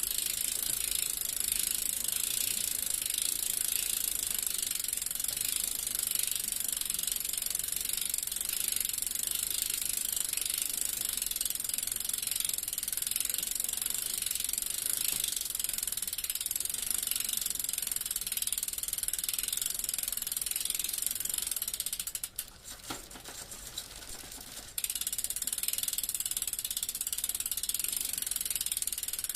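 Bicycle rear-hub freewheel clicking fast and steadily as the wheel coasts, a ratchet buzz. Near the end it drops away for about three seconds, leaving slower separate clicks, then comes back.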